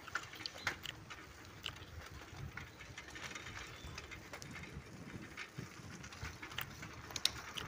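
Faint outdoor background with scattered light clicks and ticks at irregular intervals.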